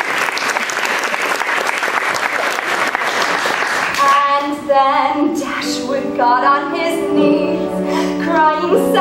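Applause, then about four seconds in several voices start singing together in a musical theatre ensemble number, holding sustained chords.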